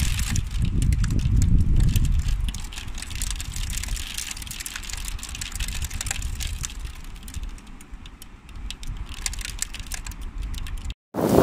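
Hailstones striking hard surfaces in rapid, irregular clicks. There is a low wind rumble on the microphone in the first couple of seconds, which then fades.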